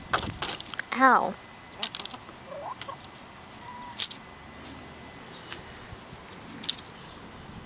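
Hens pecking grapes off a bunch, their beaks making sharp, scattered clicks and taps. One short pitched call, the loudest sound, comes about a second in.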